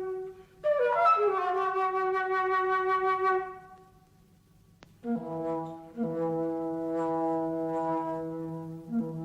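Wind and brass music: a held, high woodwind phrase that fades out a few seconds in, a brief pause, then low sustained brass chords.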